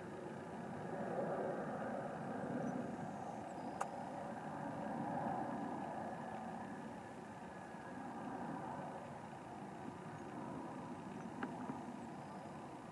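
Steady background rumble of a running engine, gently swelling and fading, with a faint sharp click about four seconds in and two more faint clicks near the end.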